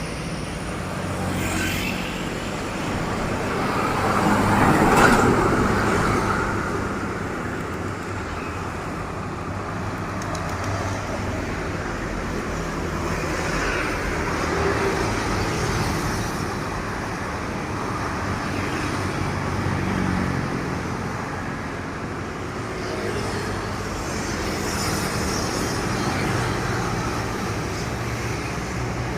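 Road traffic of heavy trucks passing one after another, each swelling and fading as it goes by. The loudest pass comes about five seconds in.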